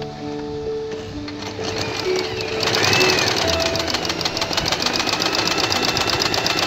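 Background music, then about two and a half seconds in an electric home sewing machine starts up and runs steadily at speed, its needle and darning foot stitching a zigzag embroidery stitch. The music continues under the machine.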